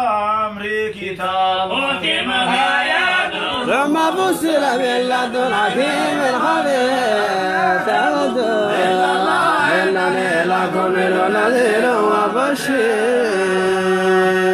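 Men's voices chanting Quranic verses in a drawn-out melodic style, several voices overlapping, with one voice holding a steady low note underneath.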